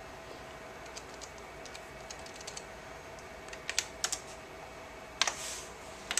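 Keys clicking on an ultrasound machine's console: a few light taps, then several louder clicks in the second half, over a faint steady hum.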